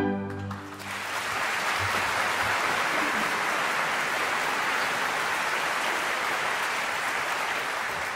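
An orchestra's final chord dies away in the first second, then a large audience applauds steadily.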